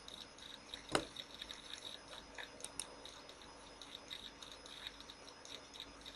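A single sharp computer mouse click about a second in, then faint scattered soft ticks over low background hiss.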